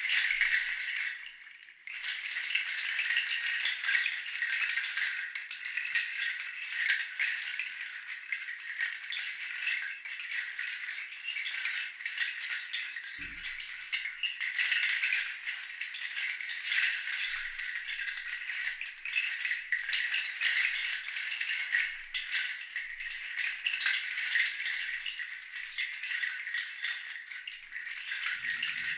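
A hand rattle shaken continuously in a steady, rustling wash, with a short pause about a second and a half in.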